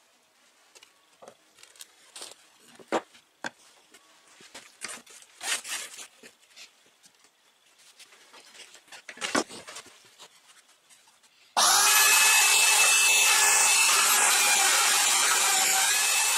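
Scattered light knocks and clicks of handling, then about two-thirds of the way in a Skil belt sander switches on suddenly and runs with a loud, steady whine as a pine bar is sanded against its belt.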